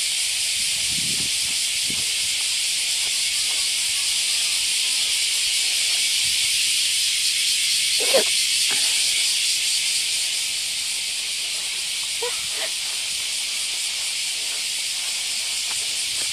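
A chorus of cicadas buzzing in a steady, high-pitched drone. There is one short sharp tap about eight seconds in.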